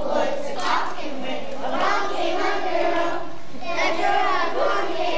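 A group of kindergarten children singing a song together, holding each note briefly before moving to the next.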